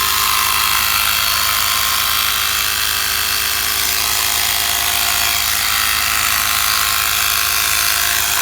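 Pittsburgh 12-volt mini air compressor running steadily while it pumps air into a low car tire. It makes a loud, even buzzing hum with a hiss on top.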